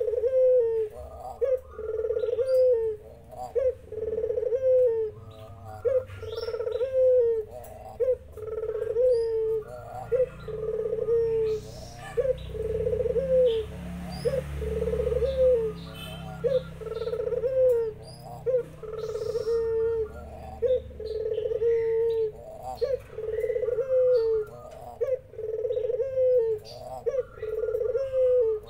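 Puter doves cooing steadily: a low, hooked coo repeated about once a second, with other birds chirping higher above it. A low rumble comes in about midway.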